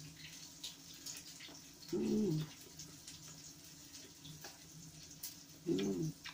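A person makes two short hummed vocal sounds, each falling in pitch, about two seconds in and again near the end, over a low steady background hum and small clicks.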